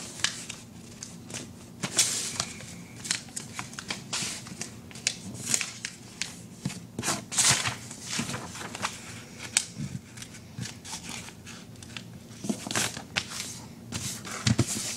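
A sheet of computer paper being folded and creased by hand: an irregular run of short rustles, crinkles and rubbing strokes with brief pauses.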